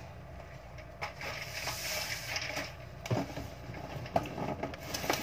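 Plastic bag rustling and crinkling as it is pulled out of a cardboard carton, with a few sharp knocks in the second half.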